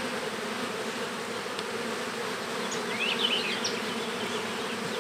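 Steady hum of a honeybee colony from an open nucleus colony as its frames are moved into a new hive, with a brief high chirping about three seconds in.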